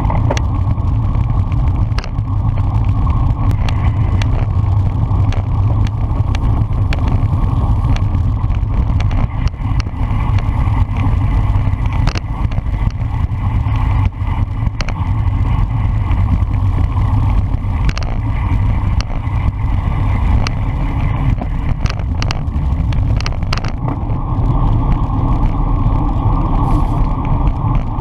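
Steady wind rumble on the microphone of a camera riding on a racing bicycle at speed in a pack, with tyre and road noise and scattered sharp clicks and knocks from the bike.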